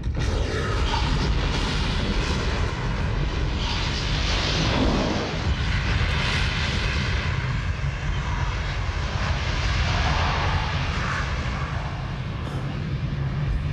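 Loud, steady low rumble with a broad noise that swells and fades every few seconds, from a film's sound effects, like a big engine or machinery.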